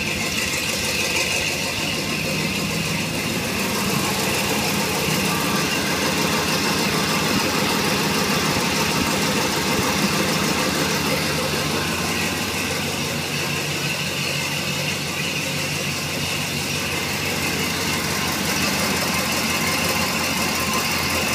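Chevrolet 350 small-block V8, bored .060 over with an RV towing cam and a Quadrajet carburetor, idling steadily through headers while it warms up after a cold start. The owner puts its poor running down to a gummed-up carburetor and fuel that is probably half water from bad ethanol gas.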